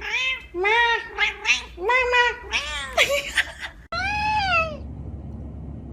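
A domestic cat meowing loudly over and over: a string of meows that rise and then fall in pitch. After an abrupt cut about four seconds in comes one longer meow, followed by steady background noise.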